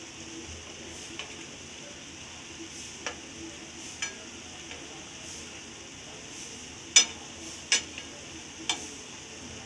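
Jalebis deep-frying in hot oil with a steady sizzle, and metal tongs clicking against the frying pan as the jalebis are turned over. There are half a dozen clicks, the loudest about seven seconds in.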